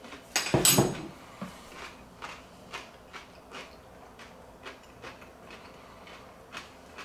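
A person chewing a crunchy pickle slice, with soft crunches about twice a second. A louder, sharper burst comes about half a second in.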